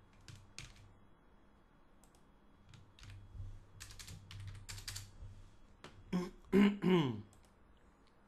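Computer keyboard keys and clicks, a scattered run of short taps. About six seconds in, two short wordless vocal sounds from a man, falling in pitch, are the loudest thing.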